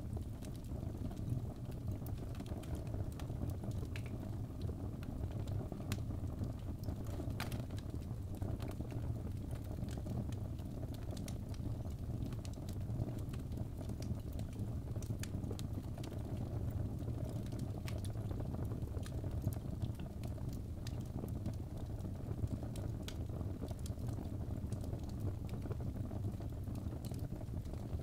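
Wood fire burning in a fireplace: a steady low sound of the flames with scattered sharp crackles and pops from the logs.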